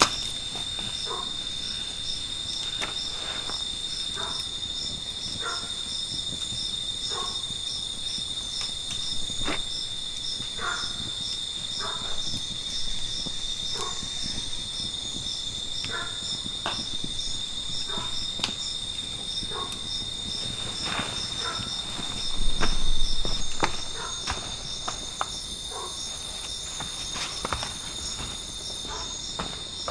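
Jungle insects chirring in a steady high drone with a regular pulse of about three beats a second. Short light knocks come every second or two, and a brief low rumble rises and fades about three-quarters of the way through.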